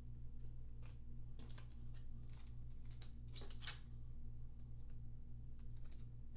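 Trading cards being handled and sorted by hand, a few faint sliding, flicking strokes over a steady low hum.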